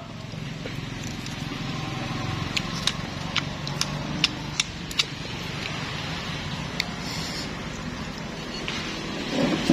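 Close-up chewing of crisp raw cucumber: a run of short, sharp crunches and wet mouth clicks, thickest in the middle of the stretch. Under it runs a steady low rumble.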